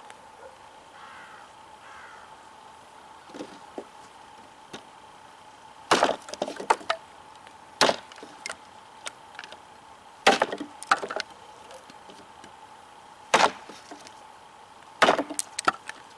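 cKc Voyager large chopping knife striking a wooden block in light chops: sharp wooden impacts at uneven intervals, starting about six seconds in, some in quick pairs. The wood is just starting to splinter under the impacts.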